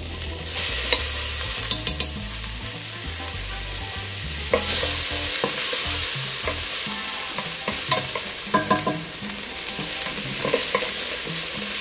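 Minced garlic sizzling steadily in hot olive oil in a stainless steel pot, starting about half a second in, while a wooden spatula stirs it with scattered scrapes and knocks against the pot.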